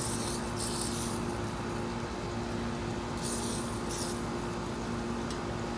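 Aerosol can of WD-40 spraying through its straw onto a fan-motor shaft in two hissing spurts, one in the first second and one about three seconds in, penetrating oil to free a stuck fan blade. A steady low hum runs underneath.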